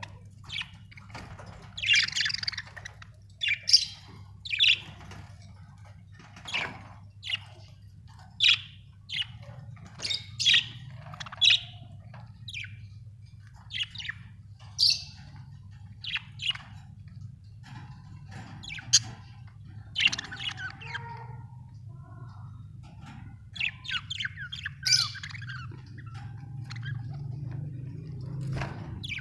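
Budgerigars chirping and squawking in many short, sharp calls at irregular intervals, over a steady low hum.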